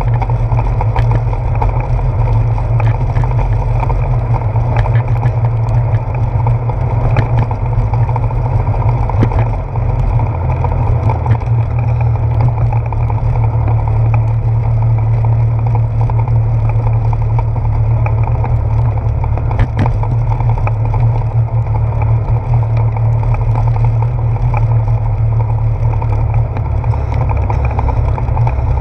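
Steady, loud low rumble of a bicycle ride picked up by a handlebar-mounted GoPro Hero 4: wind and road vibration as the bike rolls over a wet wooden boardwalk, with scattered light clicks and knocks.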